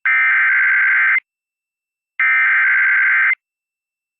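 Emergency Alert System SAME header: two bursts of buzzy digital data tones, each a little over a second long, with about a second's gap between them. They encode the coded alert that starts a severe thunderstorm warning broadcast.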